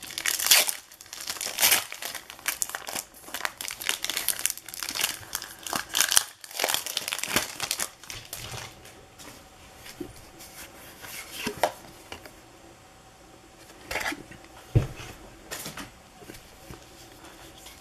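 Pokémon Lost Origin booster pack's foil wrapper crinkling and tearing open for about eight seconds, then quieter handling of the cards with a few light taps.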